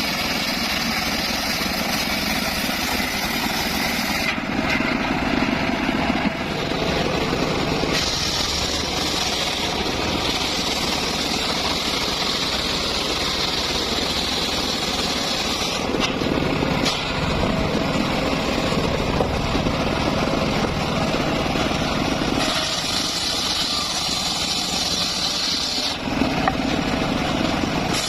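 Circular saw running continuously while cutting mahogany wood, its tone shifting abruptly every few seconds.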